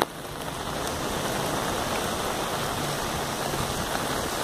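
Steady rain falling on a flooded street, an even hiss of rain on standing water.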